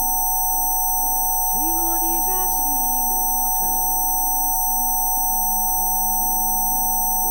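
Steady electronic sine tones of a Rife frequency session, several pure pitches held unchanging, layered over soft ambient music with slowly changing and gliding notes.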